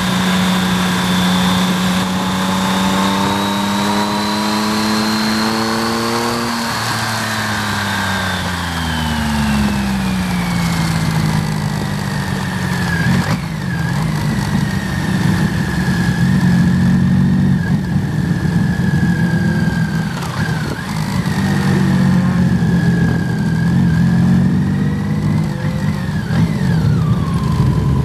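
1988 BMW K75 three-cylinder motorcycle engine running at speed, heard from on board over a steady rush of wind. The engine pitch climbs for about six seconds, falls away over the next few, then holds with small rises and dips. A thin high whine follows the engine speed.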